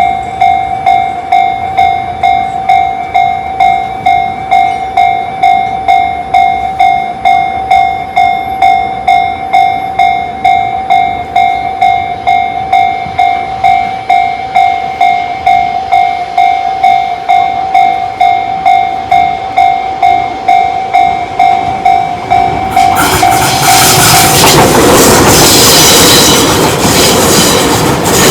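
Tobu level-crossing alarm (Tobu tone C, the Tojo Line type) ringing as a repeating electronic ding, about two a second. About 23 seconds in a train rolls through the crossing, loud enough to drown the alarm.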